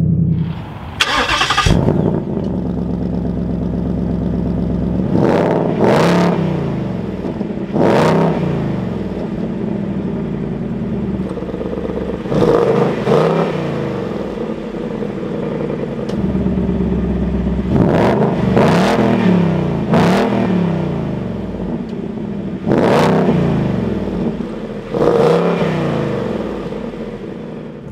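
Ford Mustang GT's 5.0-litre Coyote V8 idling and revved in a series of sharp throttle blips, about every two to three seconds, each climbing and falling back to idle.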